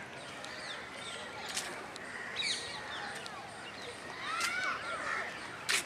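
Several birds calling and chirping at once, with short gliding whistled notes over a steady outdoor hum. A sharp click comes shortly before the end.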